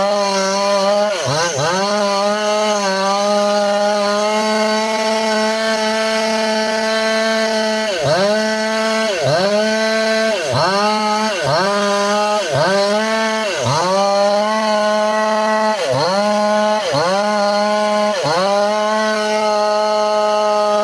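Two-stroke chainsaw running at high revs while cutting into a large tree trunk. Its engine note keeps dipping and recovering about once a second as the chain bites into the wood, with a steadier stretch of several seconds in the middle.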